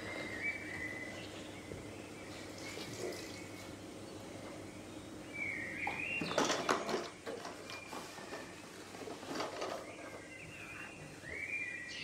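A cloth wiping and rubbing a bathroom sink and granite countertop, loudest about six to seven seconds in and again around nine seconds. Several short high chirping squeaks come and go in between.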